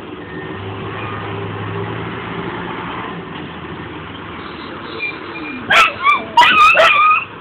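A vehicle engine hums low and steady. Then, about three-quarters of the way through, dogs break into a quick run of loud, high-pitched yips and whines.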